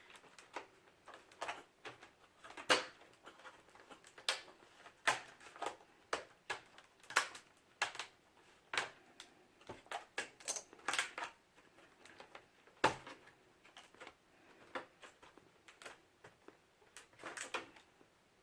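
Plastic laptop screen bezel being prised loose by hand: a run of irregular sharp clicks and snaps as its clips let go, with one louder snap about 13 seconds in.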